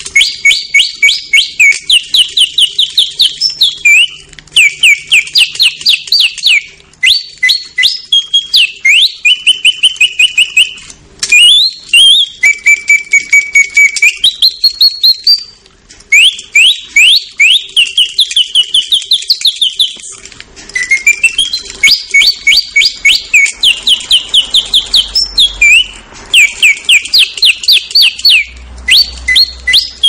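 A 120-year-old mechanical singing-bird movement running: its bellows-blown whistle imitates birdsong in fast trills of repeated chirps and rising and falling glides. The phrases are broken by short pauses.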